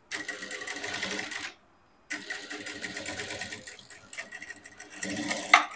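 Industrial single-needle sewing machine stitching a seam in two runs: about a second and a half, a half-second stop, then about three and a half seconds more. The second run ends with a sharp click.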